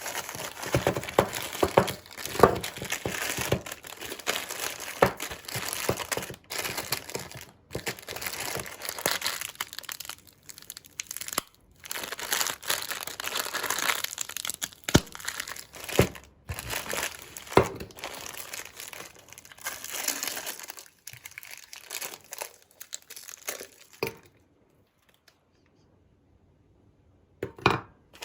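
Crinkling and crumpling handling noise with scattered sharp clicks and knocks. It stops for about three seconds near the end, then a short burst returns.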